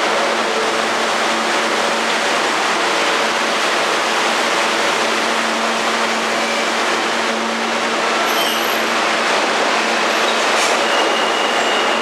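New York City subway train standing at the platform and then pulling out, giving a loud, steady rumble and hiss. A thin high whine comes in near the end as the train gets moving.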